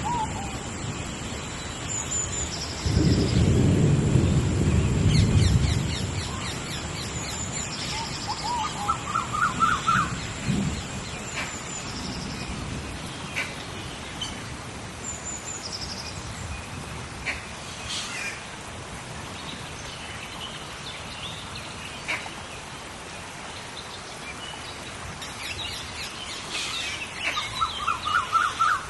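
Steady tropical rainforest rain, with a deep rumble of thunder a few seconds in. Birds call over it, twice in a quick run of rising chirps, and there are scattered sharp drips or clicks.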